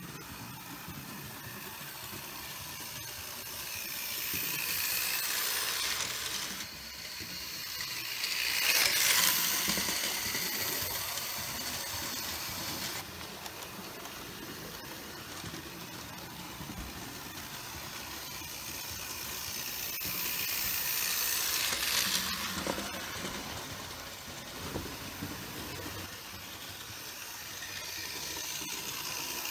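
Model freight train running on sectional track, led by a Norfolk Southern Dash 9 diesel. Its wheels make a steady rolling rattle that swells louder several times as the cars pass close by.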